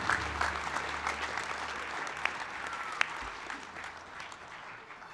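Crowd applauding, the clapping thinning out and dying away over a few seconds.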